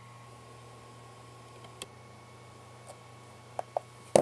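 Steady low hum from the powered-on 3D printers, with a few short sharp clicks from the printers' control knobs and parts being handled: one about halfway through and two close together near the end.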